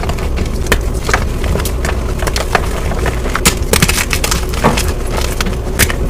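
Blocks of gym chalk being crushed and crumbled, giving a dense, irregular run of crisp crunches and crackles over a steady low rumble.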